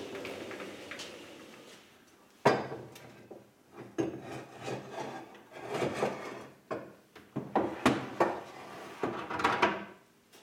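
Plaster mould pieces being handled on a wooden shelving unit: a sharp knock about two and a half seconds in, then a run of irregular bumps and scrapes as the pieces are slid off the shelves and lifted down.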